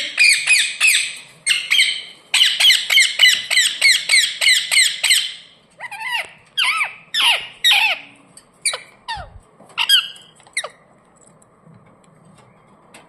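Ringneck parakeet screeching in rapid runs of short, harsh calls, each falling in pitch, about six a second for the first five seconds. It then gives slower, separate calls that stop near the end.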